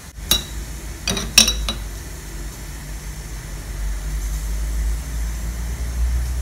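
A few light clinks of a metal spoon, the sharpest about a second and a half in, as coconut oil is spooned into an empty frying pan. A low steady hum runs underneath.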